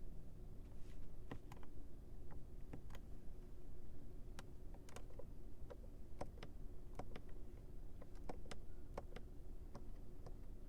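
Light clicks at irregular intervals, a few a second, over a steady low hum.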